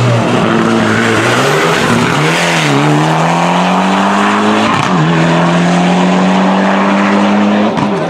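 Race car engine at full throttle, revving up through the gears: the pitch climbs steadily, drops sharply at an upshift a little past halfway, climbs again and drops at another shift near the end.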